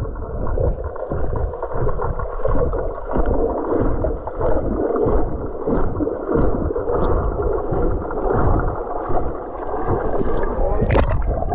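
Muffled rushing and sloshing of water heard through a camera held underwater by a swimmer, surging with his strokes. A brief, brighter splash comes near the end.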